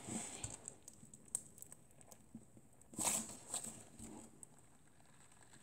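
Clear glitter slime being squeezed and worked by hand, giving faint, scattered crunchy crackles with a slightly louder cluster about three seconds in. The slime has been activated with a lot of baking soda, and its maker wonders whether the glitter causes the crunch.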